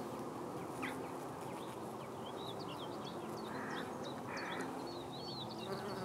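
A bumblebee buzzing low and steadily as it forages, with small birds chirping and twittering in the background.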